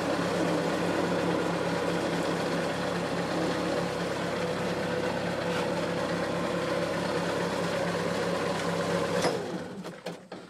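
Argo ATV engine running steadily, then shut off about nine seconds in. A few clicks and knocks follow as it stops.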